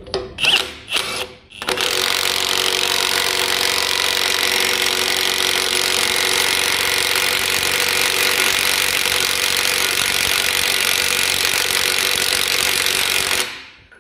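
Ryobi HP high-torque cordless impact wrench (RIWH18X) running on a 30mm nut: a few short bursts, then a steady run of about twelve seconds that stops near the end.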